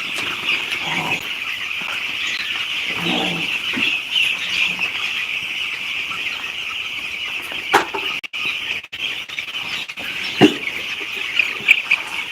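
A poultry flock, chiefly chicks, peeping in a dense, continuous high chorus, with two sharp knocks in the second half.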